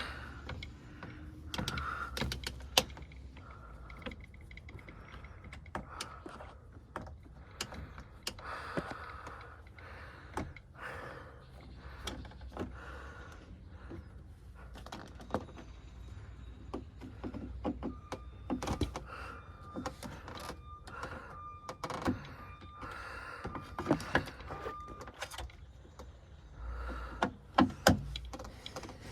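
Irregular clicks, knocks and small metallic rattles of hand work inside a truck door, fitting a new door latch and handle.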